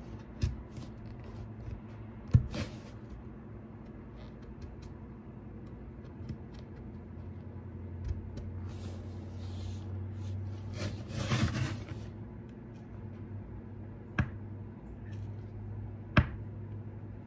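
Small knife shaving and scraping the edge of a wooden fiddle plate: soft scraping strokes with a few sharp clicks, the loudest about two seconds in, and a longer spell of scraping from about nine to twelve seconds in, over a steady low hum.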